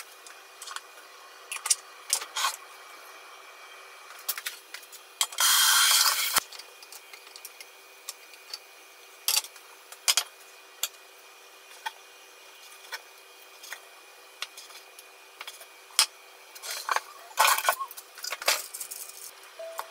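Kitchen handling sounds: scattered clicks and knocks of metal tongs and utensils, with a loud hiss lasting about a second about five seconds in. Near the end come a few quick knocks of a knife slicing through a pan-fried chicken thigh on a wooden cutting board.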